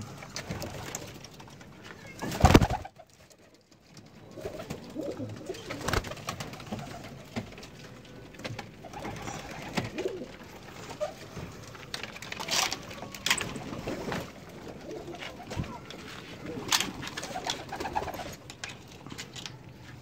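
Domestic pigeons cooing over and over, with scattered clicks and rustles and one loud knock about two and a half seconds in.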